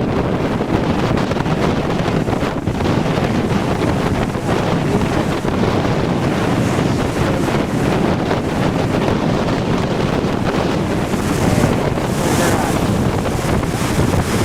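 Strong wind buffeting the microphone in a steady roar, over heavy storm surf breaking and washing ashore from a hurricane far offshore.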